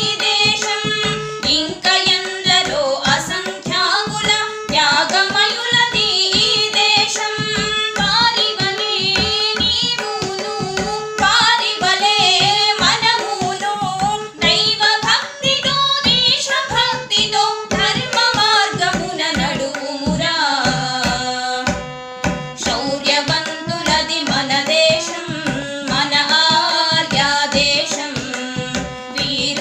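Two women's voices singing a Telugu patriotic song together, accompanied by a harmonium's sustained reed tones and a tabla pair played in a quick, steady rhythm. About two-thirds of the way through, the voices hold one long note while the drumming briefly stops.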